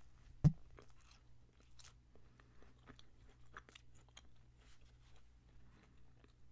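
Close-miked eating of an iced heart-shaped donut: a single loud thump about half a second in, then soft, irregular chewing clicks and smacks.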